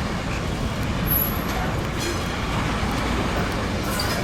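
Steady, even running noise of a train's electric locomotives.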